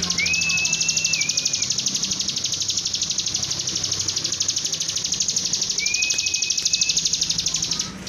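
Bar-winged prinia (ciblek) singing a fast, unbroken run of high chipping notes, with a long thin whistle near the start and another about six seconds in. The song cuts off suddenly at the very end, over a low steady hum.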